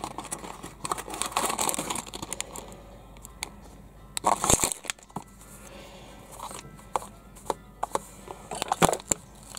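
A cardboard toy box being opened by hand and a clear plastic bag of small plastic bricks crinkling, with scattered rustles and clicks. A louder tearing crackle comes about halfway through.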